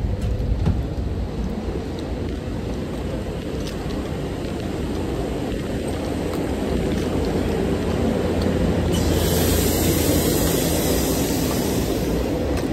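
SEPTA Regional Rail train running with a steady rumble that slowly grows louder, joined by a high hiss from about nine seconds in until shortly before the end.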